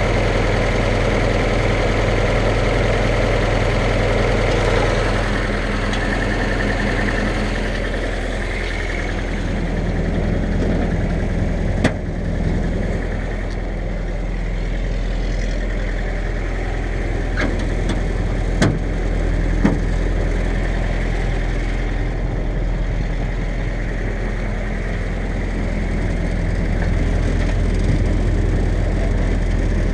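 1946 Willys CJ2A's Go-Devil four-cylinder flathead engine idling steadily, with a few sharp knocks about halfway through.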